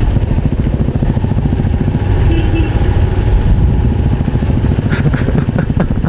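Motorcycle engine running steadily while riding, a dense low pulsing from its firing.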